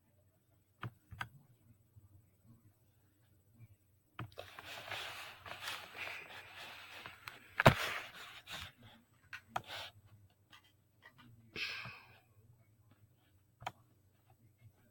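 Scattered clicks from a Chromebook laptop's touchpad as puzzle pieces are picked up and placed, with one louder click near the middle. A few seconds of soft hissing noise run through the middle, and a shorter patch comes near the end.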